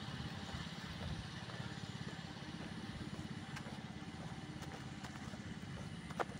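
A steady low mechanical drone with a fast, even pulsing, and one sharp click near the end.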